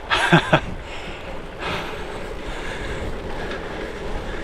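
Steady wind rushing over the microphone of a bike-mounted camera while cycling in a strong breeze, with a brief vocal sound at the very start.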